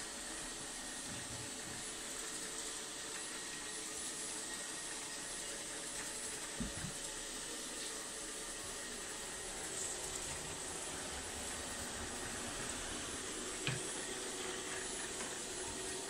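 ILIFE V50 Pro robot vacuum cleaner running on a laminate floor with a steady whirring noise. Two soft knocks come through, about seven seconds in and near the end.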